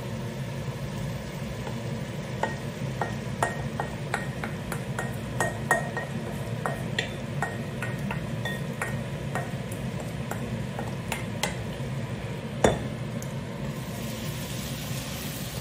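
Wooden spatula scraping chopped onion and red pepper out of a stainless steel bowl into a wok and stirring them: a run of light clicks and knocks of wood on metal, with one sharper knock late on, over a steady low hum.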